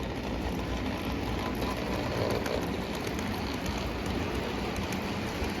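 O gauge toy train running on three-rail track, a steady rolling rumble and clatter of wheels and motor.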